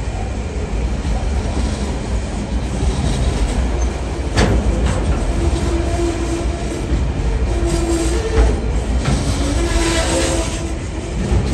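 Loaded container wagons of a freight train rolling past on the rails: a steady low rumble with sharp clicks as wheels cross rail joints, and a faint wavering tone from the wheels that comes and goes in the second half.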